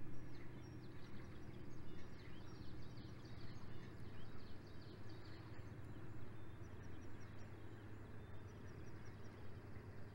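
Small birds twittering and trilling in quick repeated phrases, over a steady low hum.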